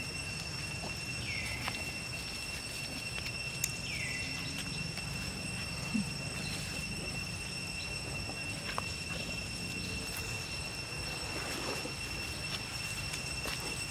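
Two short, falling squeaks from a baby macaque, about a second in and again about four seconds in, over a steady high insect drone and a low background rumble.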